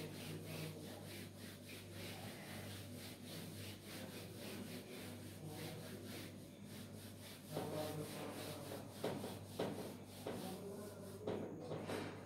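Whiteboard duster rubbed back and forth over a whiteboard to wipe off marker writing, a quick run of rubbing strokes with a few louder ones in the second half.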